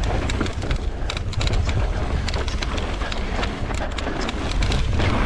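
Wind rumbling on the action-camera microphone while a mountain bike rolls over sandstone slickrock, with many small clicks and rattles from the tyres and the bike.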